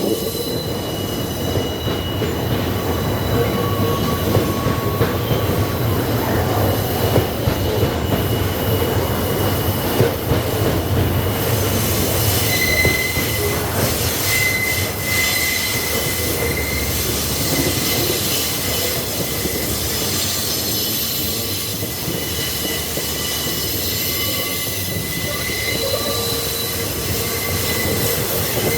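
Freight train wagons rolling past with a steady rumble and the wheels squealing on the rails in high, drawn-out tones that come and go.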